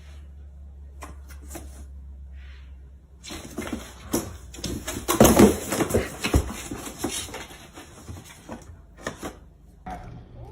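Angry house cat scuffling and hissing in a burst of scratchy, clicking noise lasting about five seconds. It starts about three seconds in, over a low steady hum.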